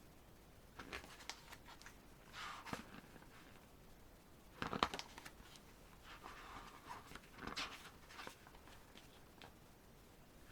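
Faint, scattered paper rustles and soft taps as the pages of an album photobook are handled and turned, with one sharper tap a little before the middle.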